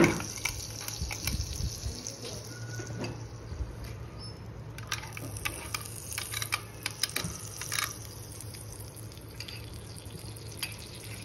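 A table knife scraping and clicking against the nonstick plates of an electric mini waffle maker as butter is spread over them. A cluster of sharper clicks comes about five to eight seconds in, over a steady low hum.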